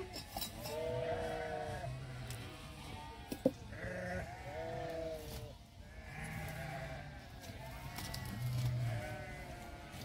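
Sheep bleating, several voices overlapping in repeated calls, with a single sharp crack about three and a half seconds in.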